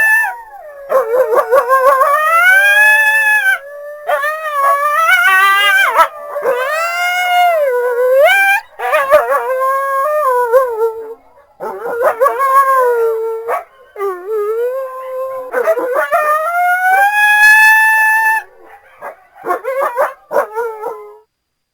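Coyotes howling and yipping: long wavering calls that rise and fall in pitch, with several voices overlapping at times, breaking into short yips near the end before stopping.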